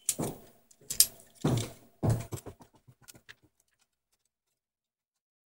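Handling noise of a TV power supply circuit board: a few knocks and scrapes as it is picked up and turned, then a run of small clicks that stops about three and a half seconds in.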